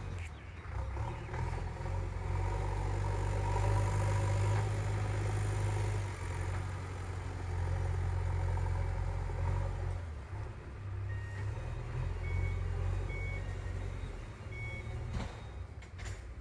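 JCB 3DX backhoe loader's diesel engine running, its speed rising and falling twice as it works, with a reversing alarm beeping a few times near the end.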